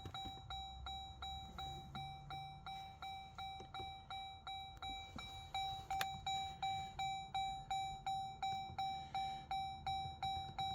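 2011 Jeep Grand Cherokee's dashboard warning chime sounding with the ignition on and the engine off: one clear ding repeating evenly about three times a second.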